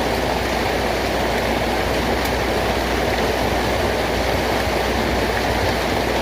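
Steady, even rush of falling water, with no breaks or changes.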